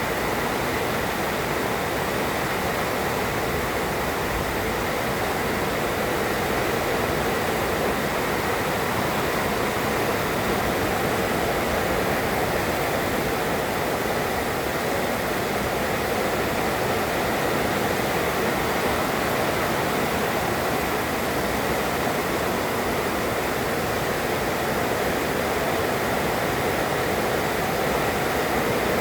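Heavy rain pouring down in a steady, dense hiss, with no thunderclap.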